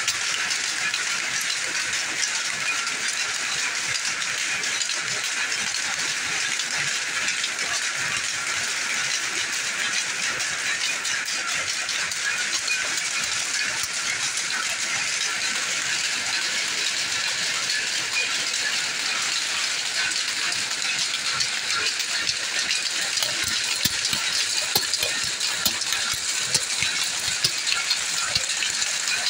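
Many power looms running together: a loud, dense, steady mechanical clatter with no let-up, with a few sharper clacks standing out near the end.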